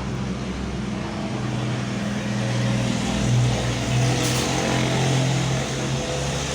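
Vehicle engines running in a queue, a steady low hum that swells through the middle, with a brief hiss about four seconds in.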